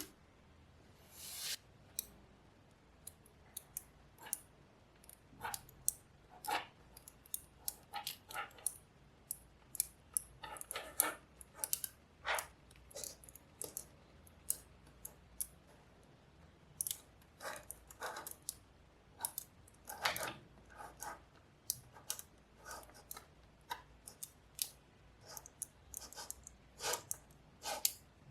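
Small neodymium magnetic balls clicking and snapping together as they are placed one by one, in irregular single clicks with short clattering clusters.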